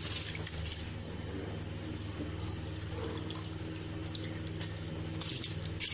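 Soaked rice tipped off a slotted steel spoon into a pot of watery masala, with wet splashes and slops, about at the start and again near the end. A steady low hum runs underneath.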